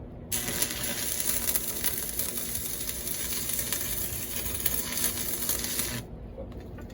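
Welding arc on a mini bike exhaust pipe, crackling and hissing in one steady run of about six seconds that starts just after the beginning and cuts off sharply.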